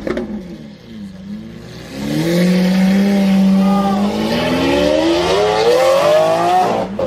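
Lamborghini Aventador's V12 engine: the revs fall away at first, then from about two seconds in it pulls hard, the note held briefly and then rising steadily under full acceleration, inside a road tunnel. The sound breaks off suddenly near the end.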